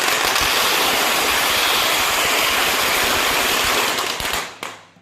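A string of firecrackers going off in a dense, continuous crackle that dies away about four and a half seconds in, with a last short burst near the end.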